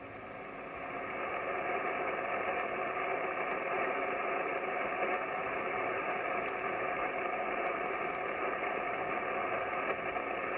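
Static hiss from a Kenwood TS-940S HF transceiver's speaker, receiving the 80-metre band in lower sideband on 3.853 MHz with no station transmitting. The hiss sits in a narrow voice-width band and swells up over the first second or so, then holds steady.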